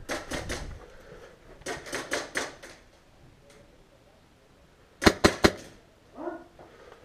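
Airsoft gunfire: rapid bursts of sharp snaps, about six shots a second, in two bursts within the first three seconds. Then comes the loudest, a three-shot burst about five seconds in from the shooter's own HPA-powered Ares Amoeba AM-013 rifle with a PolarStar Jack engine.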